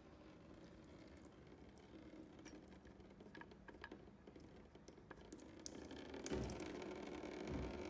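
Engine oil trickling from the sump drain hole as the drain plug is unscrewed by hand, with faint clicks of the plug turning. The thin stream pattering below gets louder about six seconds in, and there are two dull knocks near the end.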